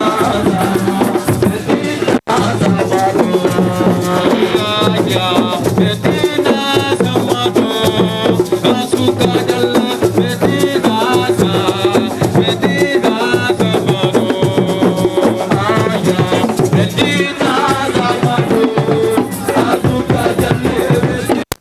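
Music with steady drumming and rattling percussion under a wavering melodic line, with a brief break about two seconds in.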